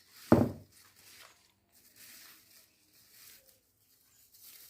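Gift packaging being handled: one dull thump about a third of a second in, then faint rustling.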